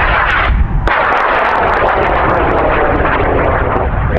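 High-power rocket motor burning as the rocket climbs: a loud rushing noise that drops out for a moment about half a second in and then resumes. Wind rumbles on the microphone underneath.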